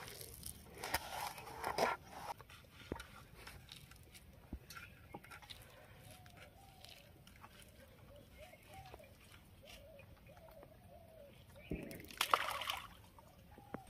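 A hand mixing dry rice bait in a steel plate, rustling and crunching for about the first two seconds. Then faint wavering calls, and a short burst of noise a little before the end.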